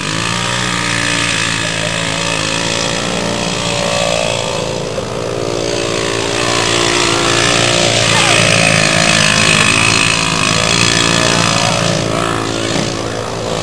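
Small off-road engines running: a dirt bike and a buggy riding around, a continuous engine drone that holds mostly steady with small shifts in pitch.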